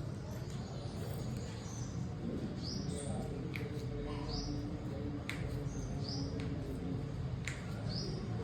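Small bird chirping in short, high, repeated calls, irregularly about every one to two seconds, over a steady low hum.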